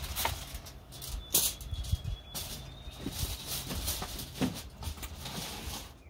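Aluminum foil crinkling and rustling as it is handled and folded, in an irregular run of crackly rustles.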